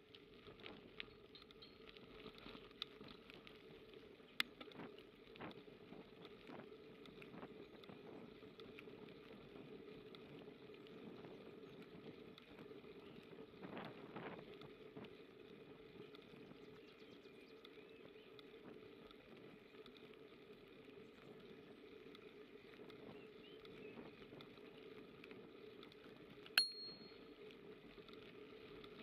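Faint steady rolling noise of a bicycle on a gravel path, with small clicks and rattles, then a bicycle bell rung once near the end, a sharp ding that rings briefly.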